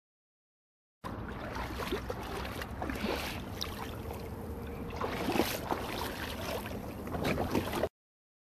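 Strong wind buffeting the microphone over choppy sea water splashing and slapping around a kayak, with a few sharper splashes. The sound starts abruptly about a second in and cuts off abruptly near the end.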